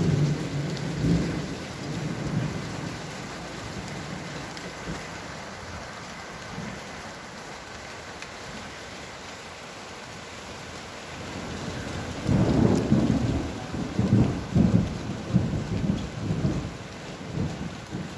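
Thunder rumbling over steady rain. A rumble at the start dies away, then about two-thirds of the way in a louder peal of thunder sets in and goes on in repeated low surges.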